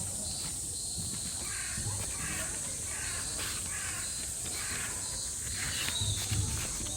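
Crow cawing in a run of about six caws roughly half a second apart, over a steady high hiss. A few low thumps come near the end.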